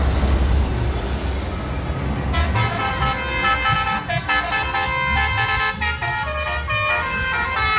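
Low rumble of bus traffic, then about two seconds in telolet bus horns start up, playing a melodic run of changing notes over it.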